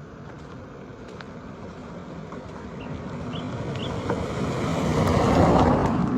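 A motor vehicle passing close by on the road, its noise building steadily to a peak about five and a half seconds in, then starting to fade.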